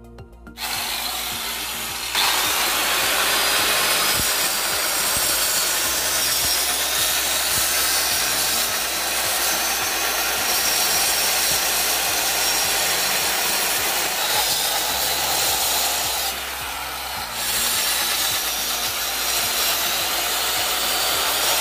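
Handheld electric marble cutter cutting into a brick wall, a steady harsh cutting noise. It starts under a second in, bites in harder about two seconds in, and eases briefly around sixteen seconds before cutting at full load again.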